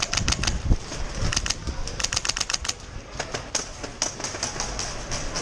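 Airsoft guns firing at an indoor field: irregular rapid sharp clicks and cracks of shots and BB hits, some in quick strings.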